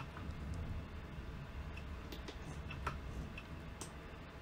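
A few faint, isolated clicks from a computer mouse and keyboard over a steady low hum of room and microphone noise.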